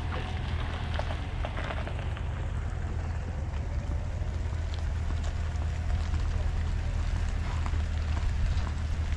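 Rain pattering steadily, with scattered small ticks over a continuous low rumble.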